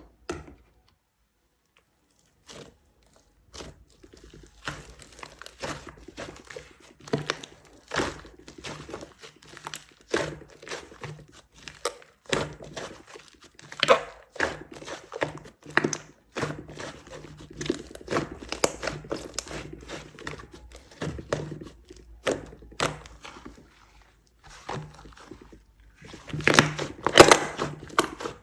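Clay slime being squeezed, stretched and pressed by hand, giving irregular sticky crackles, clicks and pops. Sparse at first, busier as it goes on, with a louder run of crackling near the end.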